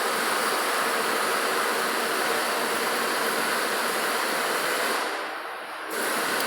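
Running engine with a steady, rough whirring from the air-conditioning compressor's pulley bearing, the sign of a worn compressor bearing. About five seconds in it dips quieter for about a second, then comes back.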